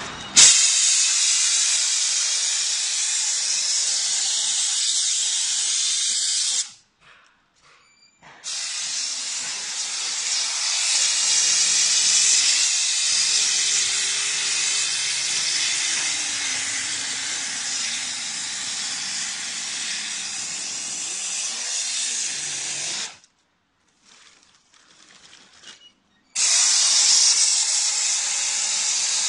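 Bonitec Handy Stripper Eco, a handheld pneumatic stripping tool, running with a loud steady hiss of compressed air as it knocks die-cut waste out of a stack of sheets. It cuts off twice, for about two seconds and then about three seconds, starting again abruptly each time.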